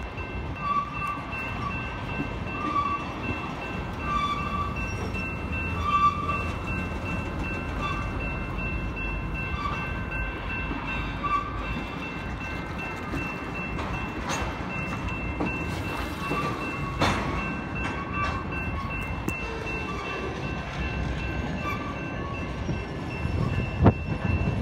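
Freight train of tank cars rolling slowly through a grade crossing with a steady low rumble, while the crossing signal's bell dings about once a second, growing fainter later on. A sharp knock near the end.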